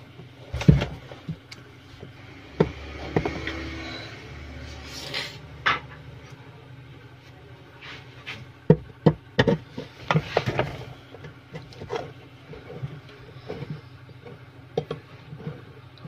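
Scattered knocks, clicks and rubbing from hands handling a plastic washing machine, with a brief low hum for a few seconds near the start.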